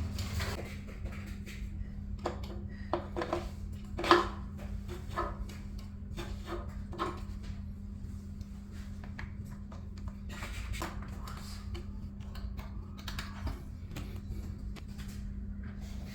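Scattered clinks, clicks and knocks of metal and plastic ceiling-fan chandelier parts being handled during assembly, with one sharper knock about four seconds in, over a steady low hum.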